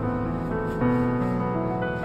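Background piano music, held notes moving from one to the next.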